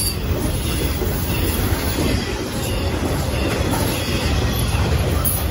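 Intermodal freight train cars carrying highway trailers rolling past close by. The steel wheels make a steady, loud rolling noise on the rails.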